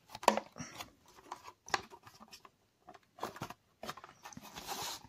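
Hard grey plastic diorama parts being handled and fitted together: scattered light clicks and taps, with a brief scrape or rustle near the end.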